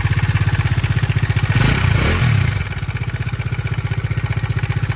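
Bajaj Dominar 400 BS6 single-cylinder engine running with a fast, even knocking clatter, briefly revved about two seconds in. It is the abnormal engine noise the owner complains of, which the title ties to the timing chain, camshafts and crankshaft.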